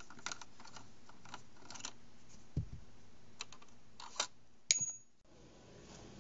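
Small clicks and taps of a screwdriver bit and fingers working a screw in the plastic underside of an original Xbox console, with a dull knock about two and a half seconds in and a sharp click that rings briefly near the end. The sound cuts off suddenly a little past five seconds in.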